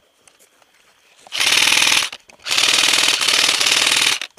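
Airsoft rifle firing on full auto in two long bursts, a short one about a second in and a longer one after a brief pause: a fast, even rattle of shots close to the microphone.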